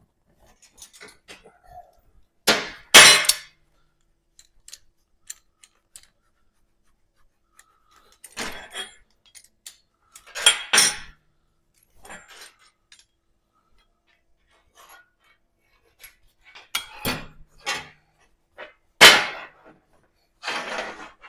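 A steel exhaust tube, locking clamp pliers and a hammer knocking and clattering on a steel welding table as they are handled and set in place: scattered clanks and rattles, loudest about three seconds in and again near the end.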